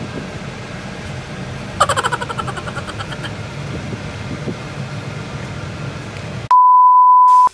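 Steady road and engine noise inside a moving car's cabin, with a brief run of quick repeated pulses about two seconds in. Near the end, a loud, steady, pure beep tone lasts about a second and cuts off abruptly.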